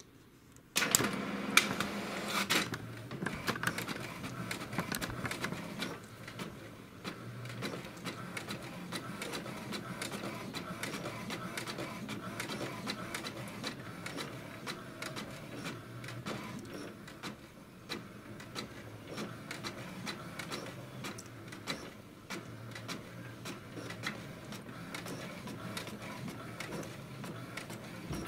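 HP DeskJet 2130 inkjet all-in-one printing a copy: about a second in its mechanism starts with a burst of clatter as the sheet is picked up, then runs steadily with many small clicks as the print carriage shuttles and the paper advances.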